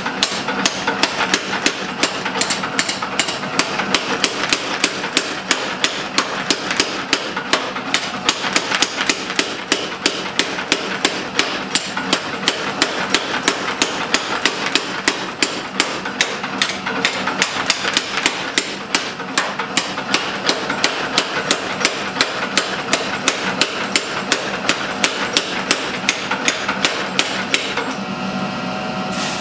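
Mechanical power hammer striking a glowing iron-and-steel knife billet in a fast, even rhythm of about three blows a second, forge welding and drawing out the hot metal, over a steady machine hum. The blows stop shortly before the end.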